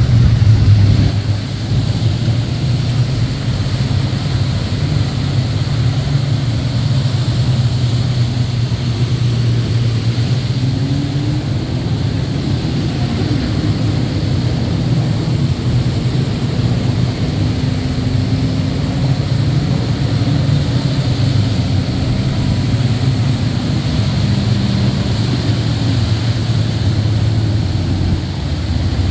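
A fleet of jet skis running past in a procession: a steady low engine drone, with a few engine notes slowly rising and falling as individual craft pass.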